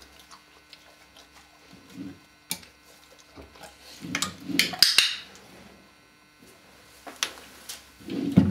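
Small wall-mounted plastic drawer rattling and clacking as a German Shepherd tugs the strap tied to it to pull it open, with a cluster of clatters about four to five seconds in and a few separate sharp clicks.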